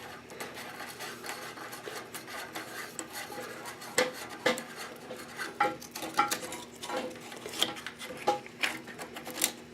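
Scattered clicks, taps and scraping of plastic parts against the porcelain toilet tank as a replacement fill valve is set in place and its nut threaded on by hand. A few taps ring briefly.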